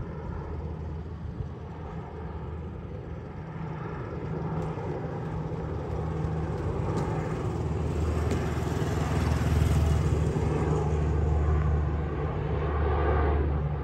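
Four-engine turboprop C-130 Hercules flying low overhead: a steady, low propeller drone that grows louder as the plane approaches, at its loudest about ten seconds in.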